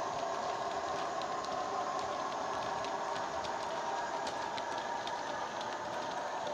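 Model railway wagons rolling past on the track, their wheels giving a run of light clicks over the rail joints. Under them runs the steady diesel engine sound of the Heljan Class 58 locomotive, played by its Howes sound decoder through a 25x25x7 mm bass-reflex speaker.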